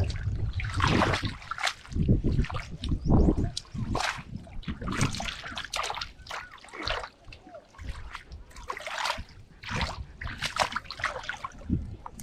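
Muddy water splashing and sloshing irregularly as hands work through it while fishing for catfish by hand.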